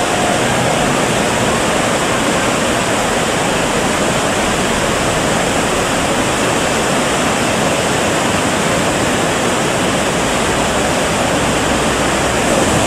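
Fast-flowing river water rushing over rocks, a steady even roar.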